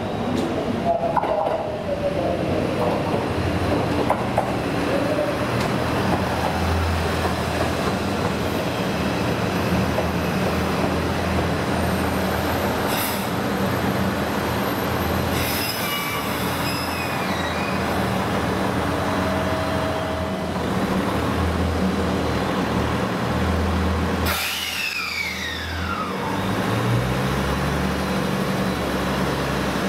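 Diesel train running, its engine making a steady low drone that shifts in pitch now and then. Its wheels squeal in the first few seconds, and a falling tone comes about 24 seconds in.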